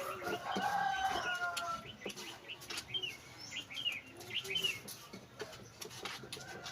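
Birds calling: a drawn-out call for about the first two seconds, then a run of short, quick chirps, with light clicks scattered throughout.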